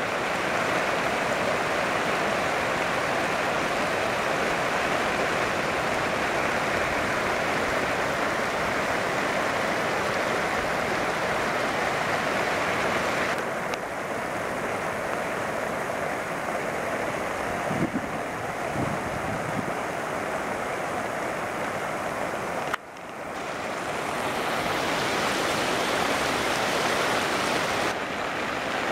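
Steady rushing of a mountain torrent in spate and its waterfalls, white water pouring down a rocky gorge. The sound shifts abruptly twice, about halfway and near three-quarters of the way through, as the shot changes.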